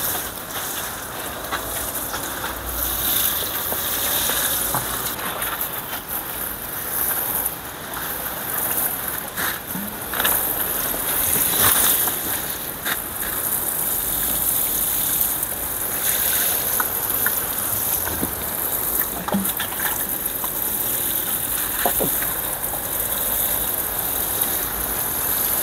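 Water spraying from a plastic watering can's rose onto soil and plant leaves: a steady hiss of falling water.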